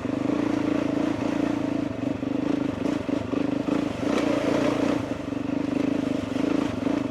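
Motorcycle engine running at a steady, even pace as the bike is ridden slowly.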